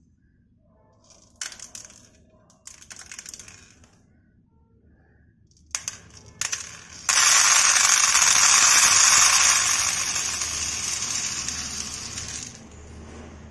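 Dry tapioca pearls (sabudana) poured from a glass cup into a plastic container: a few short rattles as the first pearls drop in, then from about seven seconds a steady stream pouring, loud at first and growing quieter as the pile builds, stopping just before the end.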